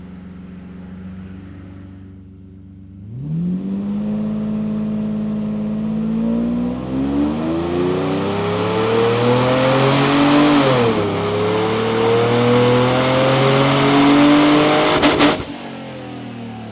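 Mercedes SL600 V12 on a dynamometer, idling and then, about 3 s in, pulled at full throttle. Its pitch rises steadily, dips briefly once about two-thirds through, and climbs again. Near the end it cuts off with a couple of sharp cracks and falls back toward idle, running through a newly fitted exhaust that the crew judges does not sound like a Pagani Zonda.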